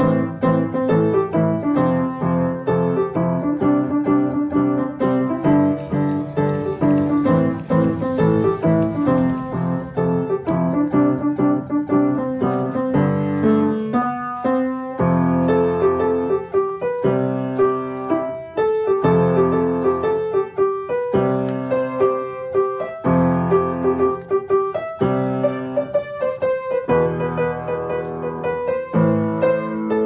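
Background piano music, chords struck at a steady pace.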